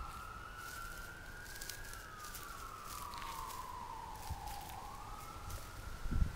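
Siren of a distant emergency vehicle wailing: one tone slowly rising, falling and rising again. A brief low thump comes near the end.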